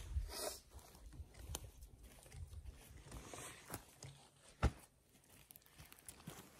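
Footsteps on a forest floor of moss, needles and dry twigs, with scattered soft crackles and one sharp crack about two-thirds of the way through.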